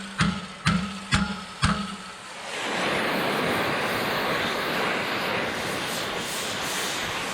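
A few plucked notes of background music, about two a second, then about two and a half seconds in an oxy-acetylene torch starts a steady, even hiss as it heats steel for bending.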